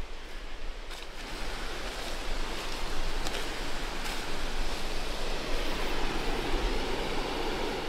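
Creek rushing, a steady noise that grows louder over the first few seconds.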